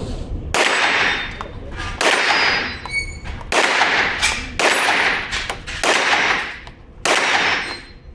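Six single shots from a 9×19 mm Glock 17 pistol fitted in a RONI tactical chassis, fired at an unhurried pace about one and a half seconds apart, each shot followed by a long echo.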